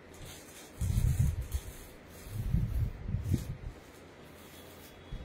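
Plastic-packed garments being handled, rustling and rubbing in two spells: one about a second in, and another from about two seconds in to nearly four.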